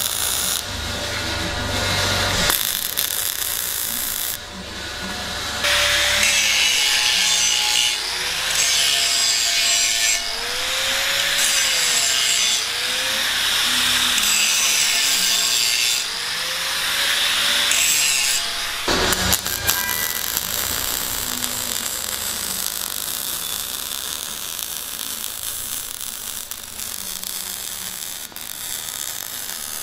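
Abrasive scraping on steel pipe in long stretches, with brief breaks and a pitch that rises and falls during the middle stretch. It settles into a steadier, quieter hiss near the end.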